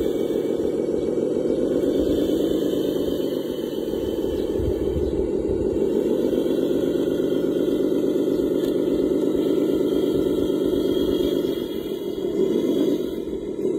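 Radio-controlled model heavy machinery running with a steady engine-like drone, dipping briefly about twelve seconds in.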